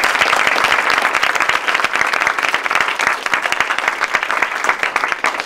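Audience and board members applauding, many hands clapping steadily, tapering off near the end.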